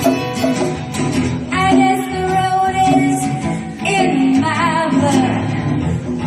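Live band music: guitar accompaniment with a woman singing, her held notes wavering in pitch from about four seconds in.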